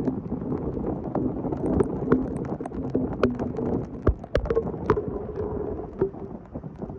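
Rain, with wind buffeting the phone's microphone and many irregular sharp taps and knocks. A faint low hum comes and goes underneath.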